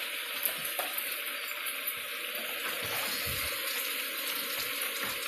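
Ground turkey and fresh spinach sizzling steadily in a sauté pan on the stove.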